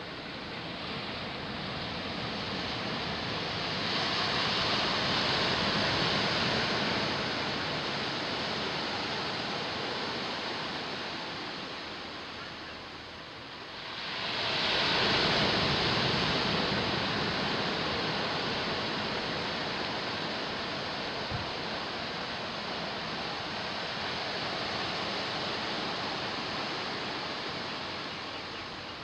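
Ocean surf: waves breaking and washing in, swelling about four seconds in and again, louder, about fourteen seconds in.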